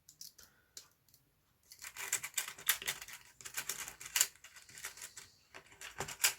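Small plastic Swiss Army knife replacement parts clicking and rattling as they are handled and fitted: a few faint clicks, then from about two seconds in a dense run of quick clicks and rustling.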